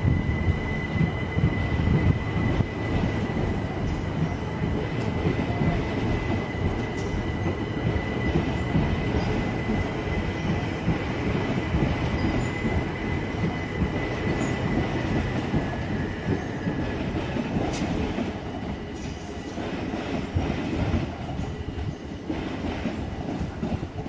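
Multiple-unit passenger train running past on the rails and into a tunnel: a steady low rumble of wheels on track, with a thin high squeal held through the first two-thirds that then fades. A few sharp clicks come near the end.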